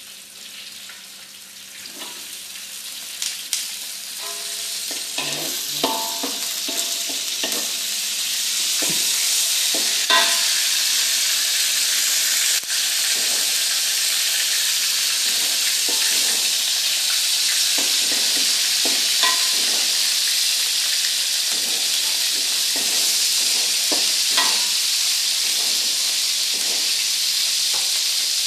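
Cut eggplant pieces sizzling as they deep-fry in hot oil in a wok. The sizzle builds over the first several seconds and then holds steady, with scattered light clicks.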